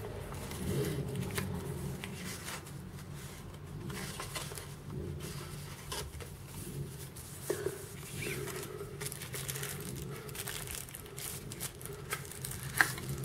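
Soft rustling and crinkling of paper and tissue packaging with light taps of cardboard as a small product box is unpacked by hand, over a low steady hum; a sharper click comes near the end.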